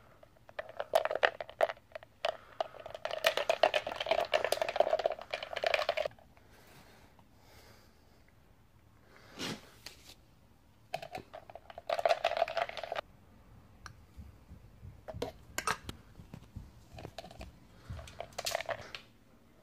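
Milk poured from a carton into a plastic blender cup of cocoa powder, running in fast irregular glugs for about five seconds and again briefly later, then scattered sharp clicks and taps of a spoon and the cup as more cocoa is added.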